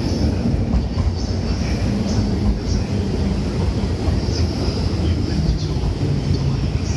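Train running on rails: a loud, steady low rumble with short high squeals now and then.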